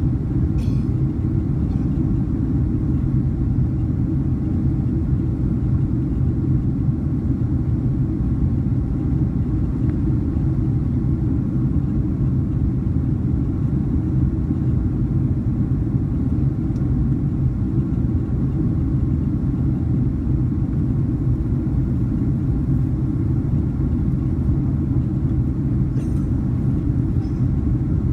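Steady low cabin drone of a Boeing 767-300 in flight: the noise of its twin jet engines and the airflow over the fuselage, heard from a window seat over the wing, with a steady hum at the bottom.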